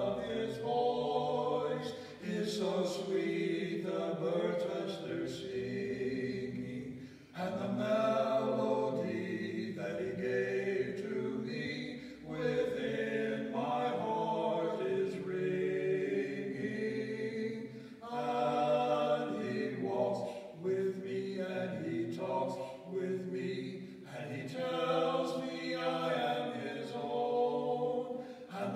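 Two men singing a hymn as an unaccompanied a cappella duet, in phrases with short breaths between them.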